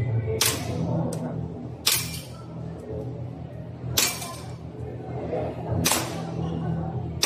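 Airsoft pistol firing single shots: four sharp cracks, each about two seconds apart.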